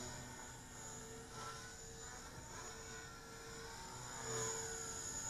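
Oxy 2 Stretch electric RC helicopter flying at a low head speed of 3,700 RPM: a fairly faint, steady rotor hum with a high whine whose pitch drifts up and down as the helicopter moves about.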